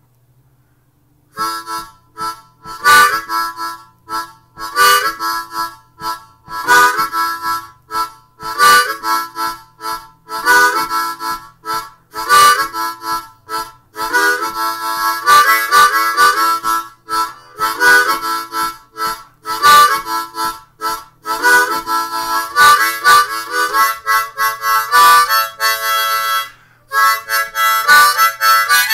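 Harmonica cupped in both hands, played by a beginner in a repeating boogie riff: short rhythmic chord phrases about every two seconds. It starts after a second and a half of silence and stops briefly near the end.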